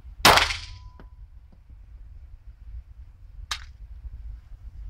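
A semi-automatic pistol fired once, a loud crack that reverberates in an indoor concrete range, followed about a second later by a short metallic tink. A second, sharper and quieter crack follows about three seconds later.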